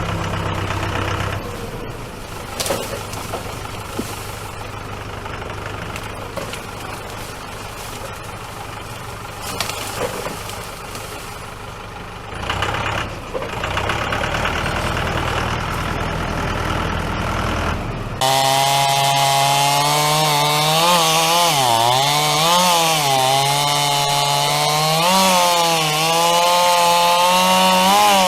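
An engine idling with a low steady hum and a few scattered knocks, then, about two-thirds of the way in, a sudden switch to a chainsaw running loud and cutting wood, its pitch dipping and rising as the chain bogs in the cut.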